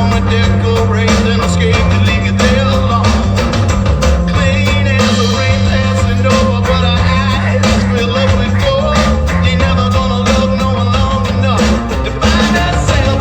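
Rock song with guitar, drums and singing, playing as background music.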